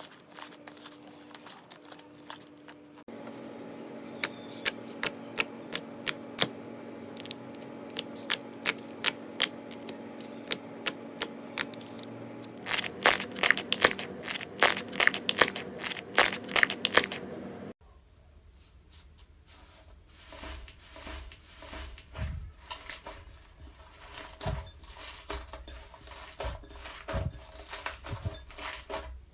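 Slime being handled, in several short clips: first scattered crackles, then sharp clicks and pops about two a second, then dense crackling from about 13 to 18 seconds in, then softer squishing with low thuds.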